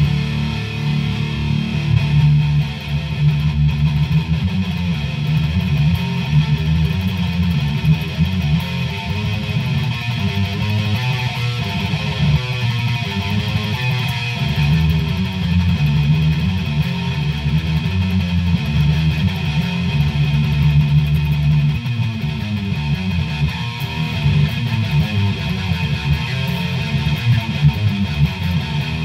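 Dean Razorback electric guitar with Seymour Duncan humbucker pickups, played through a small Line 6 amp inside a truck cab: an unbroken riff, mostly on the low strings.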